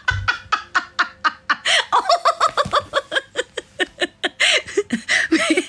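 A woman laughing hard: a long run of quick breathy ha-ha pulses, about six a second, turning into longer, higher laughs near the end.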